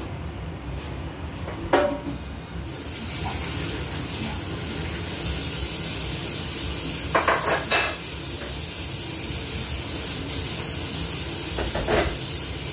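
Dishes and kitchen utensils clattering: once about two seconds in, a quick run of knocks around the middle, and again near the end, over a steady low hum and a steady hiss.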